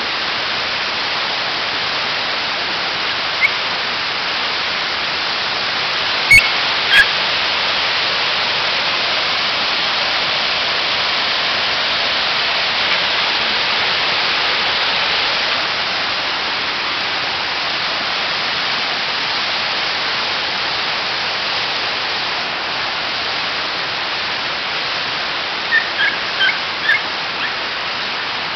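Steady rushing of a mountain stream cascading over rocks, a little louder near the middle. Two sharp clicks about six and seven seconds in, and a few short high chirps near the end.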